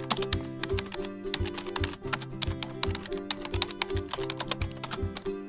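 Quick computer-keyboard typing clicks, run on without a break, over background music with a steady beat.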